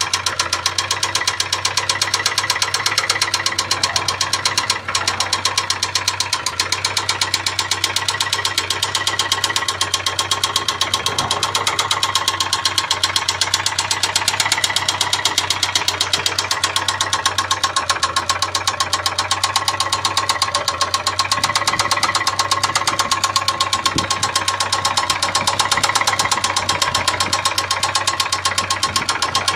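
Ford Sierra 2.0 carburettor four-cylinder engine idling steadily with a fast, regular knock on every few turns. It is an extraneous knock of unknown cause that the owner is asking for help to diagnose.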